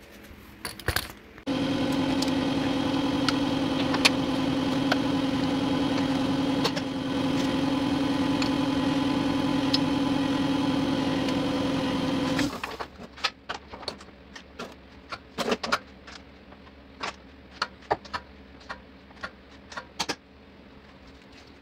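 A motor starts abruptly, runs at a steady pitch for about eleven seconds, then cuts off suddenly. After it, a scattered run of sharp clicks follows as a torque wrench is ratcheted on the control-arm bolts.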